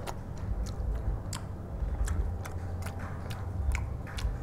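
A person chewing a mouthful of fried egg with soft wet mouth clicks, and a metal spoon now and then clicking against the bowl.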